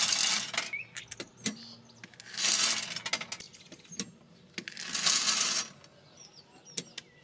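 Scoopfuls of wood pellets poured from a plastic scoop into the Ooni Fyra 12's metal pellet hopper: three pours about two and a half seconds apart, each about a second of pellets clattering into the tube, with a few sharp knocks between them.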